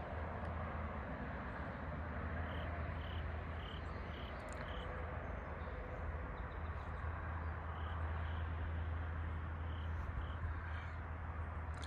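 Rural morning ambience: a steady low rumble under short, high peeps repeated about twice a second in several short runs.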